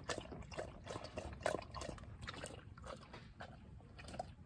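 Dog lapping water from a bowl: a quick run of wet laps that thins out and stops in the last second or so.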